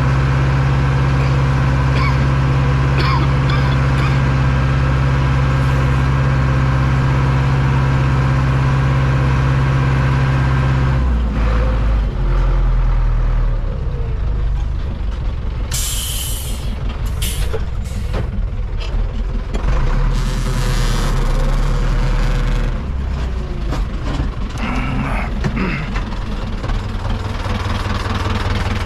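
Tractor diesel engine running steadily, dropping to a lower, uneven note about eleven seconds in. A loud hiss comes about sixteen seconds in, with shorter hisses over the next few seconds.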